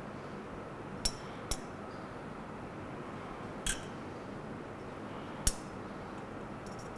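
Four short, sharp clicks and taps from handling the small metal clamp and thread at the top of a pendulum's lab stand while the string is lengthened, the loudest late on, over a steady room hiss.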